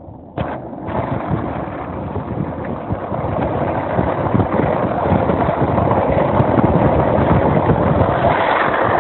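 Wind buffeting a phone microphone held out of a moving car, mixed with road noise. It starts abruptly about half a second in and grows steadily louder as the car picks up speed.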